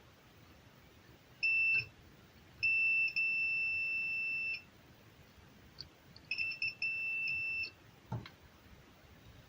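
Multimeter continuity buzzer beeping as the test probes touch: a short beep, a long steady beep of about two seconds, then a stuttering beep that breaks up and steadies, signalling an unbroken circuit between the probes. A couple of light knocks near the end.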